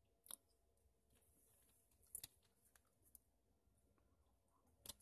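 Near silence: room tone, with three faint clicks as a gum pack is handled.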